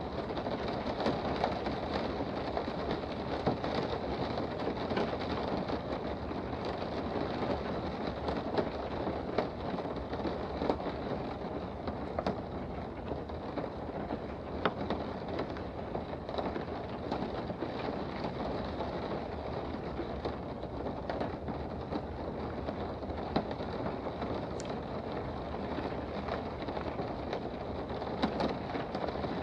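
Steady rain heard from indoors: an even, dense patter with scattered sharper drop ticks.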